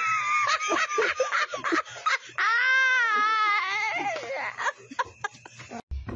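People laughing, with a long, high, wavering vocal wail held for nearly two seconds in the middle.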